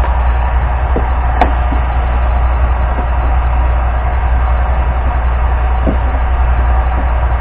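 Heat gun running steadily with a low hum and a fan noise, softening a piece of PVC pipe for shaping. A sharp click comes about a second and a half in, with a few light knocks.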